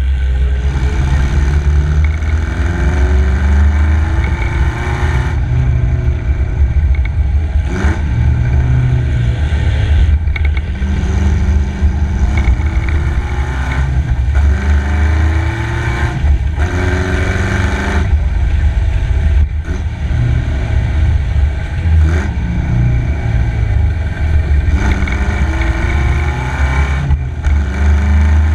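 Engine of a vintage MG racing special under hard acceleration, heard from the tail of the open car: the revs climb and drop back sharply again and again as the driver works through the gears. A constant deep rumble runs beneath it.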